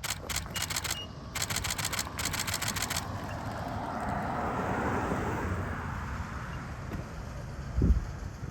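Rapid runs of sharp clicks for about the first three seconds, then a car passing, its noise swelling and fading. A single low thump comes near the end.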